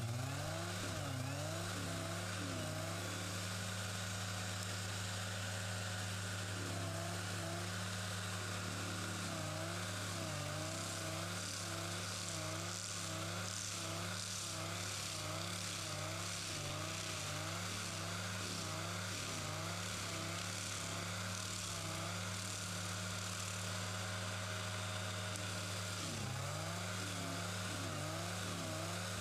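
Tracked forestry mulcher running at work: a steady machine drone with tones that waver up and down in pitch over and over.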